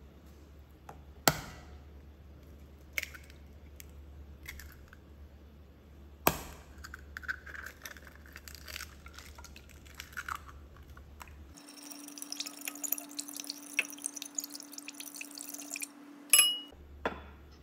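Kitchen work in a glass mixing bowl. A few sharp knocks against the glass come first, as an egg is cracked and dropped into oil and liquid. Then the mixture is beaten briskly, with rapid clicking against the glass for about four seconds, and a loud knock near the end.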